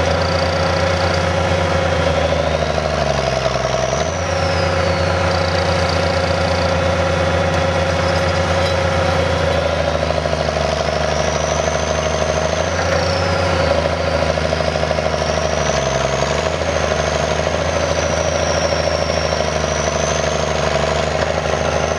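Allis-Chalmers D-19 tractor engine running steadily under load while pulling a plow through the field. Its note dips briefly twice, about four seconds in and again about sixteen seconds in, and a high whine rises and falls over it.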